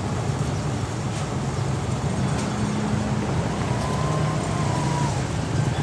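Street traffic close by, with motorbike and car engines running in a steady low rumble and a few faint clicks.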